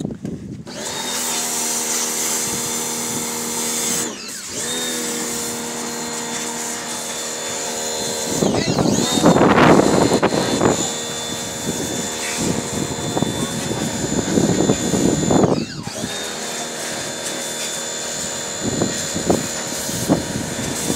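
Electric pressure washer running with a steady motor whine. It cuts out twice for a moment and winds back up each time, as its trigger is let go and squeezed again. Bursts of hissing spray come as the water jet hits the car.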